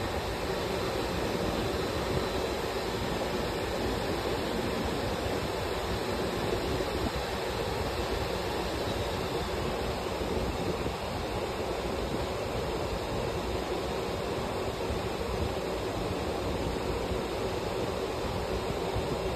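Automatic cotton candy vending machine running: a steady rushing whir from its spinning head as the arm winds cotton candy onto a stick.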